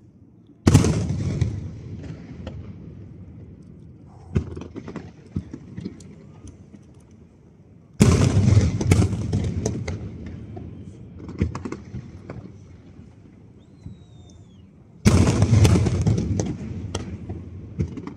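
Aerial fireworks shells bursting: three heavy booms about seven seconds apart, each trailing off in a long rumble with crackling, and smaller pops between them.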